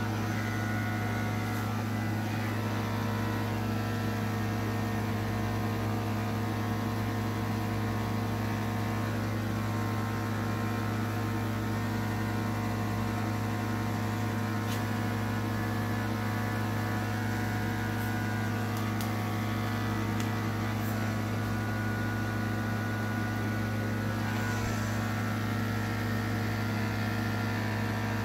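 Corded electric dog-grooming clippers running steadily with a low, even hum while trimming the fur on a dog's head and face.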